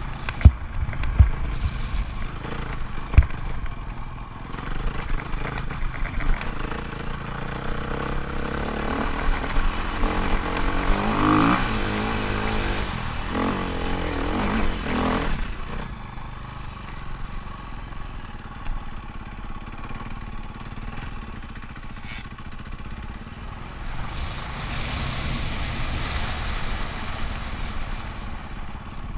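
Dirt bike engine running steadily, then revving harder with rising pitch from about 8 to 15 seconds in as it pulls up a steep hill, before settling back. A low rumble and a couple of sharp knocks near the start come from the ride shaking the helmet-mounted microphone.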